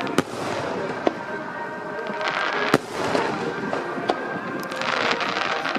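Aerial fireworks bursting overhead: three sharp bangs, the loudest near the middle, over continuous dense crackling from the shells.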